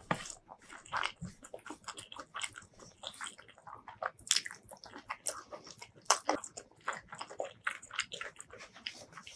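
Close-miked eating of rice and raw vegetables with sambal terasi: crunchy bites and wet chewing and lip smacks, many irregular crackles and clicks.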